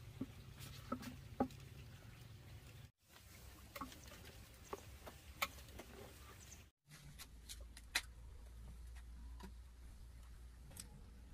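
Scattered light knocks and clicks: a hollow-log wooden mortar is set on a wooden stool and small pieces are dropped into it. In the last few seconds come the sparse crackles of a wood fire burning under a pan of water.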